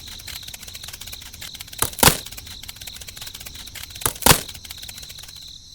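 Two pairs of sharp knocks about two seconds apart, over a steady background hiss with fine rapid ticking.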